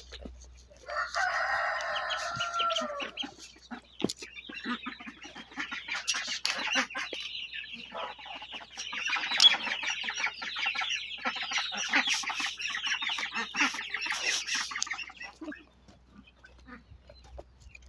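Chickens: a rooster crows once near the start, a call of about two seconds that falls in pitch at its end. Then, after a short gap, the flock clucks busily together for about nine seconds.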